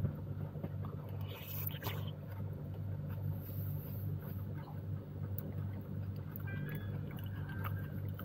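A steady low mechanical hum, with a brief scraping rustle about one to two seconds in and a few faint spoon clicks and quiet eating sounds.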